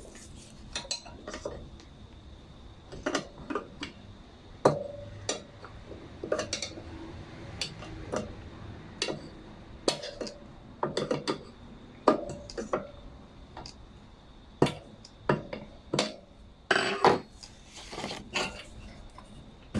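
Pliers and metal parts clicking and clinking in irregular taps and knocks while a fuel hose clamp is worked off a Briggs & Stratton 500E lawnmower engine.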